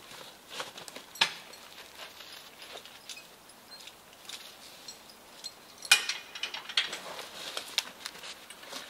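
Logging chain and the metal hardware of a horse-drawn logging arch clinking and knocking while a log is being chained up: scattered sharp clicks, with the loudest knock about six seconds in and a cluster of clinks after it.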